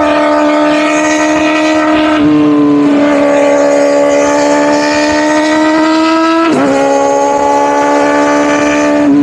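Kawasaki Ninja ZX-4RR's inline-four engine through a newly fitted aftermarket exhaust, ridden at high revs: a steady pitch that climbs slowly, with a sharp drop and recovery at a gear change about six and a half seconds in and a brief dip near the end.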